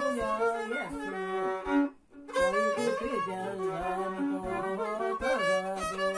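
Hutsul folk tune played on fiddle, quick bowed notes with slides between pitches. It breaks off for a moment about two seconds in, then goes on.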